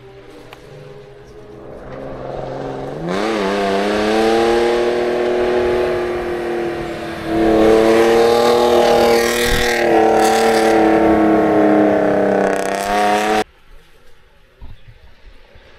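Off-road race SUV's engine approaching at high revs: the note climbs about three seconds in, then holds and grows louder as the vehicle comes through the bend, with tyre and gravel hiss. It cuts off suddenly near the end.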